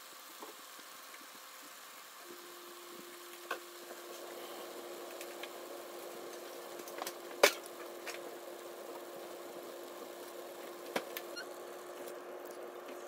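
Chicken adobo simmering in a pan, with a steady hum that comes on about two seconds in and a few sharp clicks, the loudest about seven seconds in.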